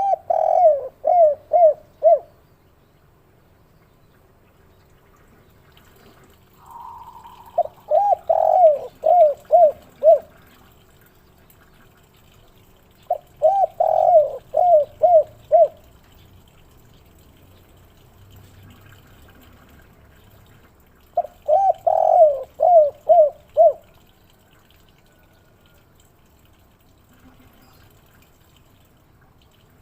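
Spotted dove (derkuku, tekukur) singing its 'kuk 3' cooing song: four phrases several seconds apart, each a quick run of about five or six coos. A softer, drawn-out coo comes just before the second phrase.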